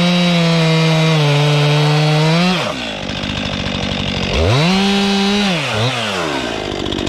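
Stihl MS261C two-stroke chainsaw cutting through a log at full throttle, running high and steady under load, then speeding up briefly and dropping back about two and a half seconds in as the cut finishes. In the middle it is revved up again for about a second and released, with one short blip of the throttle, then settles to a lower speed.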